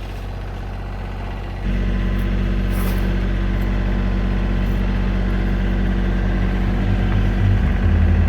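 A vehicle engine running steadily, stepping up suddenly in level about a second and a half in and staying there.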